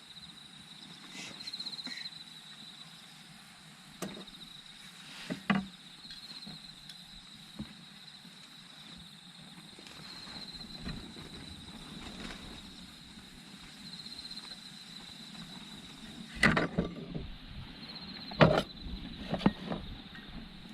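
Insects singing steadily in a high thin tone that swells about every four seconds, with a few sharp knocks and scrapes from handling the wood and tools, the loudest two near the end.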